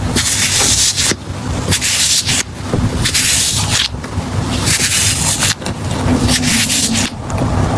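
Handmade squishy stress ball being squeezed and released over and over by hand, a run of irregular rustling, squishing bursts about a second long with short pauses between them.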